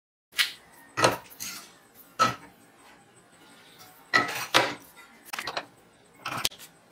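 Metal clanks and knocks as a small electric water pump is set and clamped in a steel bench vise, the vise's handle clinking as it is turned. About nine separate knocks, a second or so apart.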